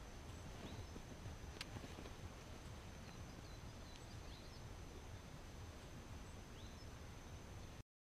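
Quiet ambience: a low rumble with a thin steady high whine over it, a few faint high bird chirps, and one sharp click about one and a half seconds in. The sound cuts off abruptly just before the end.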